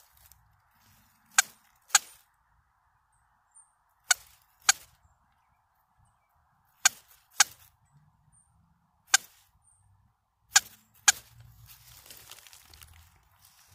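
Hand-tapped bellows squirrel call giving short, sharp barks, mostly in pairs about half a second apart with a pair every two to three seconds, nine strokes in all. The tapping mimics a squirrel's barking to draw squirrels in.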